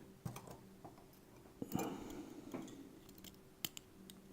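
A handful of faint, scattered small clicks as the pins and springs of a disassembled lock cylinder are handled and moved about.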